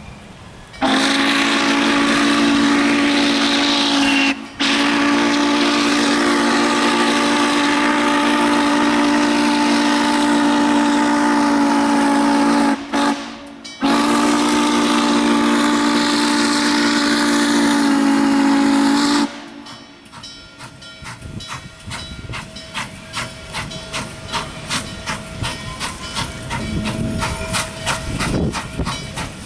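Norfolk & Western 611 steam locomotive's whistle blowing for a grade crossing in three long blasts of a steady chord, with two brief gaps. After the whistle stops, the locomotive's exhaust beats come in a quickening, louder rhythm as it works past.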